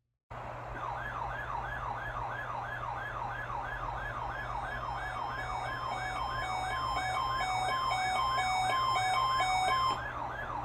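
Electronic warning alarm sounding a fast, repeating rising sweep, about three a second, starting abruptly. About halfway through, an alternating high-low two-tone signal joins it and cuts off near the end. This is a test activation of a radio-triggered warning alarm.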